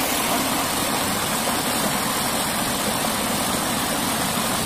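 Water of a small cascade in a rocky stream rushing and splashing over boulders close by, steady and unbroken.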